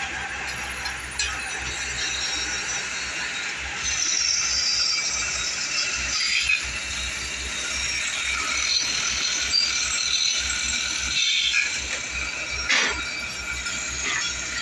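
Pillar drill press running and drilling metal sewing-machine plates held in a steel jig, a steady mechanical whirr with a low hum. A few sharp metal clinks come from the jig and workpiece being handled.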